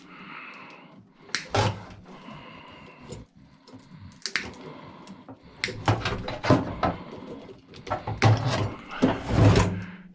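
Metal parts of a microwave being handled during a teardown: an irregular series of knocks and clanks, loudest and heaviest near the end.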